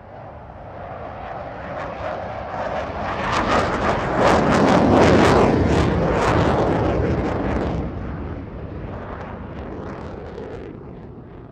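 An airplane flies over: the engine roar swells from nothing to a peak about four to six seconds in, crackling at its loudest, then fades away.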